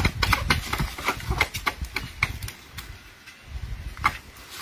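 Dog and chickens eating raw, uncooked rice off a sheet of cardboard: a quick run of small crunching and pecking clicks over a low rumble. The clicks thin out after about two and a half seconds and come again briefly near the end.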